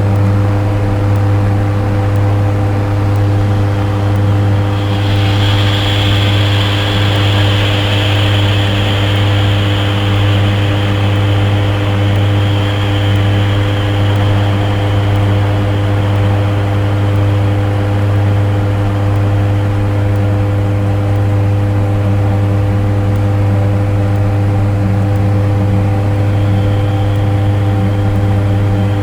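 Dark ambient electronic drone: a loud, steady low hum with sustained tones layered over a noisy wash. A high, hissing whistle enters about five seconds in, fades away, and comes back faintly near the end.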